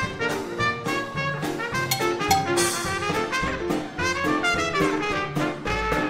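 1920s-style jazz dance orchestra playing an instrumental, a trumpet playing the lead with brass backing over a steady beat.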